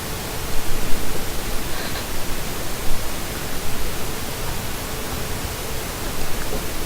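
Steady hiss of background noise, with a faint steady hum and a few soft knocks in the first three seconds.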